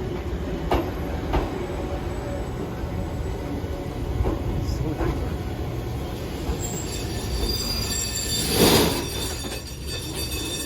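Train running on rails: a steady low rumble with a few sharp clacks, then a louder squeal of wheels against rail about eight to nine seconds in.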